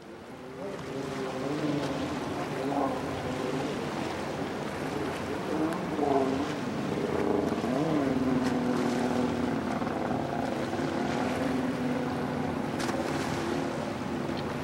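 Motor yacht engines running at speed past the listener, a steady drone that wavers in pitch, over the rush of water and wake. It fades in over the first second.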